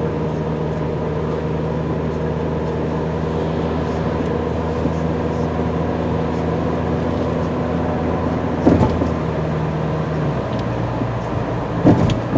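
Steady engine and road noise heard from inside a moving car's cabin. Its pitch drops slightly about ten seconds in. There are two short knocks, one near nine seconds and one near the end.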